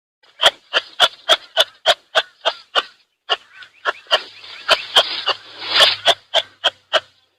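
An animal making a rapid run of short, sharp calls, about three or four a second, with a brief break about three seconds in.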